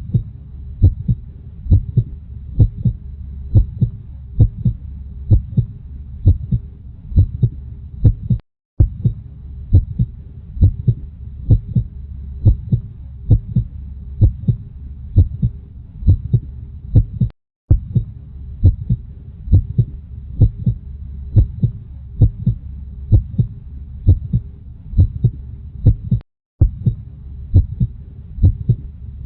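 Heartbeat, slow and steady in lub-dub pairs about once a second, over a low steady whoosh. It drops to silence for a fraction of a second about every nine seconds.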